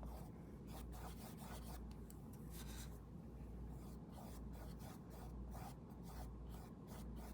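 Paintbrush stroking and dabbing paint onto a textured painting surface: faint, quick, irregular scratchy strokes over a low steady hum.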